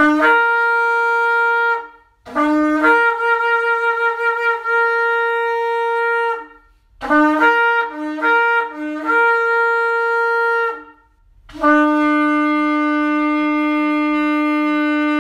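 Shofar blasts: each blast starts on a low note and jumps up to a higher one. First comes a short blast, then a longer one of about four seconds, then three quick broken blasts and another long one. Near the end a long, steady, low blast begins and is still sounding at the close.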